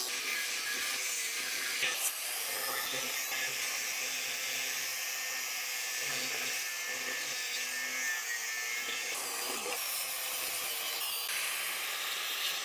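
A power tool running steadily against metal with a hissing grind; the sound shifts about nine seconds in.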